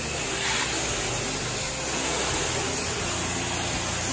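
Pressure washer spraying a steady hiss of plain water onto vinyl siding, rinsing off dust, with the machine running underneath.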